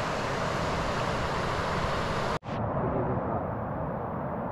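Steady rushing noise, broken by a sudden drop-out about two and a half seconds in, where the recording cuts, then going on.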